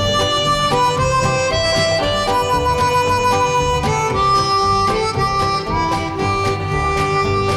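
Background music: a melody of held notes changing pitch every half second or so over a steady low accompaniment.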